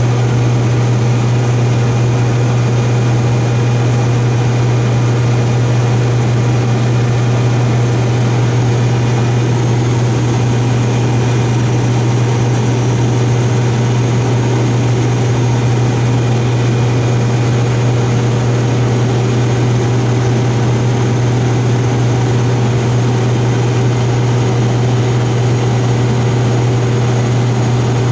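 Combine harvester running steadily during wheat harvest: a loud, unchanging engine and machinery drone with a strong low hum and a few steady higher whines.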